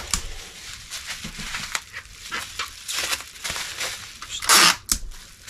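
Packing tape pulled off a tape dispenser with a loud, brief rasp about four and a half seconds in, among small crinkles and clicks of bubble wrap being handled.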